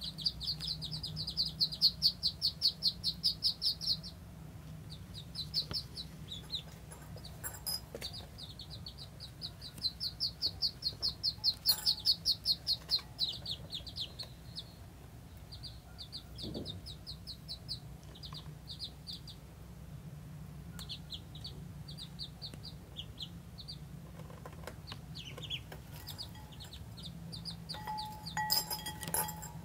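Ducklings peeping: high, short peeps in two long, fast runs, then in scattered shorter bursts.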